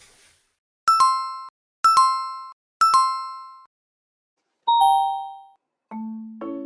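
A bright two-note chime, a high note falling to a lower one, sounds three times about a second apart, then once more at a lower pitch; light mallet-instrument music begins near the end.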